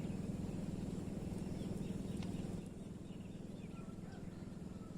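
Riverside ambience: a steady low rumble with a few faint bird chirps. The rumble drops a little about two and a half seconds in.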